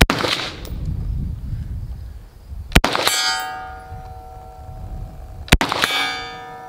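Sig Sauer MCX Spear LT 5.56 rifle fired three times, about three seconds apart. A moment after each of the last two shots comes the ring of a hit steel target, fading over about a second.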